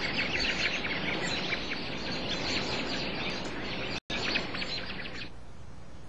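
A flock of American robins chirping, with many short calls overlapping in a dense chatter. The chatter drops out for an instant about four seconds in, then stops about a second later, leaving a faint hiss.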